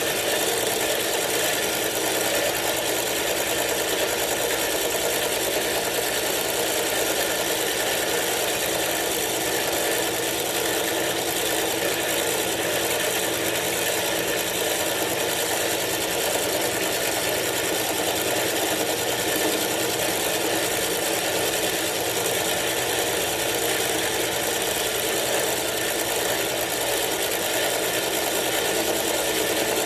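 Milling machine running steadily while its cutter mills the lock relief into the frame of a frame-lock knife.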